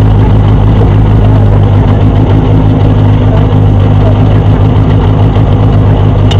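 Ford Fiesta rallycross car's turbocharged four-cylinder engine idling steadily, heard from inside the stripped cockpit. A short click near the end.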